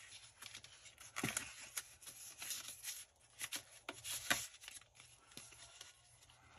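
Paper and plastic packaging of a phone screen protector rustling and crinkling as it is handled: a string of short scrapes and crackles, loudest a little over a second in and again around four seconds in.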